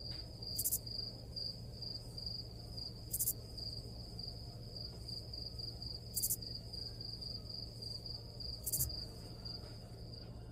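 Cricket chirping: a steady, fast-pulsing high trill with a brighter burst about every two and a half seconds, cutting off abruptly at the end.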